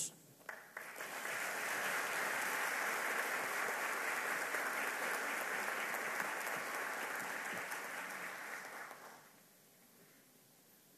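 Audience applauding, a dense steady clapping that starts about half a second in and dies away about nine seconds in.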